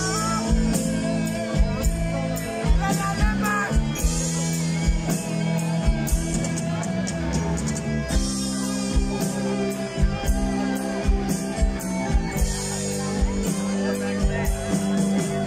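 Live rock band playing an instrumental passage between verses: drum kit keeping a steady beat under bass guitar, electric guitars and keyboards.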